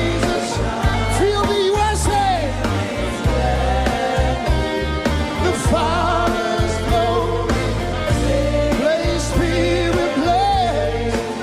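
Live worship music: a band with bass and drums, and a wavering melody line carried over it.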